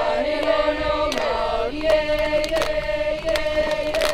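A group of voices chanting a traditional Hawaiian chant together, with a long held note and other voices moving around it.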